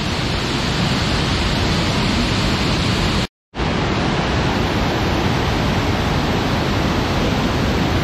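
Loud, steady rush of a small rocky waterfall in full flow, muddy water pouring and churning over rock ledges. The sound cuts out completely for a moment about three seconds in, then carries on unchanged.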